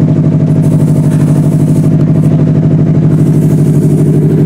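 Drift car engine idling steadily and loudly, an even unchanging pulse.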